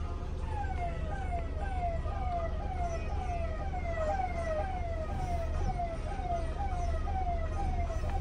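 An electronic siren sounds a fast, repeating falling wail, about two sweeps a second, starting about half a second in. A steady low rumble from the moving car lies underneath.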